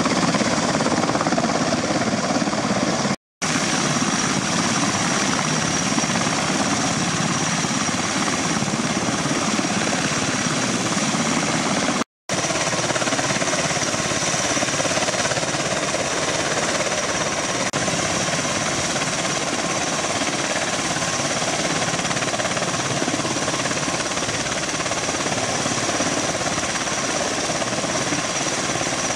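Bell Boeing CV-22 Osprey tiltrotors running on the ground, their turboshaft engines and upright proprotors making a loud, steady noise with a high turbine whine on top. The sound drops out briefly twice.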